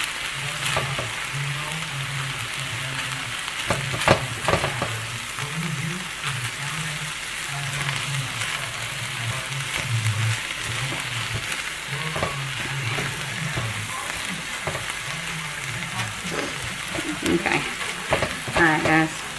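Cauliflower fried rice sizzling steadily in a skillet while a spatula stirs and scrapes it around the pan, with a louder knock about four seconds in.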